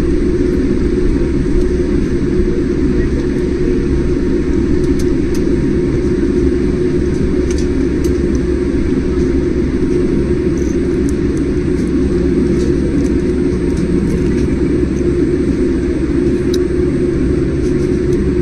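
Steady low rumble of an airliner's jet engines and airflow heard inside the cabin while the plane taxis, holding an even level with no spool-up.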